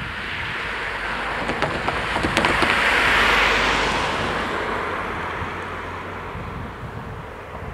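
A car and a small pickup truck drive over the level crossing and past, their tyre and engine noise swelling to a peak about three seconds in and then fading. A few sharp knocks sound as their wheels cross the rails.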